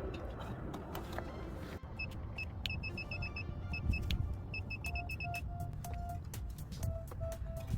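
Short electronic beeps: a run of quick high beeps in uneven groups, then a lower beep repeating a few times a second, over a low rumble and scattered clicks.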